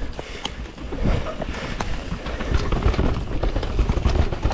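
Mountain bike descending a rough dirt trail: tyres rolling over the ground and the bike knocking and rattling irregularly over bumps, over a strong low rumble of wind on the microphone.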